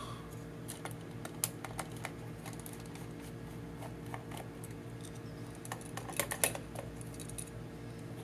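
Light plastic clicks and taps from hands handling a DJI Phantom 2's plastic shell and landing gear, scattered through, with a small cluster of clicks about six seconds in, over a steady low hum.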